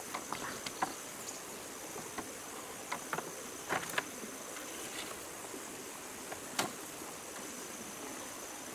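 Steady high-pitched insect drone, with scattered light clicks and knocks of bamboo poles and lattice being handled, the sharpest a few seconds in and again past the middle.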